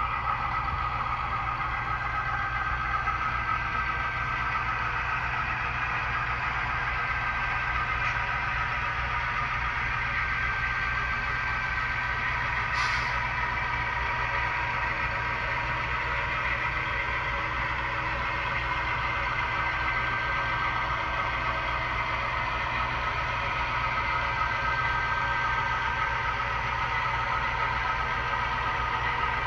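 HO-scale model diesel locomotives running steadily, a constant engine-like drone with a steady whine. A short hiss about thirteen seconds in.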